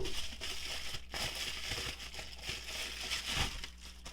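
Packaging crinkling and rustling as a mug is unwrapped by hand, with a few light knocks; it eases off near the end.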